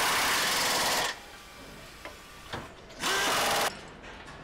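Power tool running with a steady whine. It cuts off about a second in and runs again in a short burst of under a second about three seconds in.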